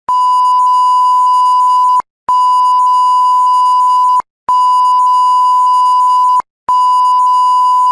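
Censor bleep: a loud, steady, pure beep tone laid in place of speech, in long beeps of about two seconds each broken by brief gaps.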